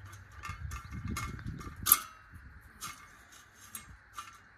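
A string of irregular light clicks and knocks, the sharpest about two seconds in, over a low rustle in the first half.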